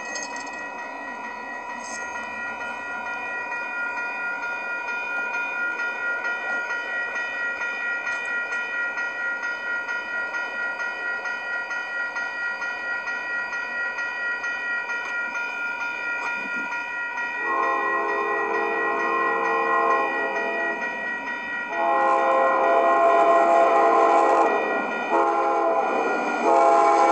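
Railroad crossing warning bell ringing steadily. About two-thirds of the way in, an approaching train's horn joins it with four blasts, long, long, short, long: the standard grade-crossing signal.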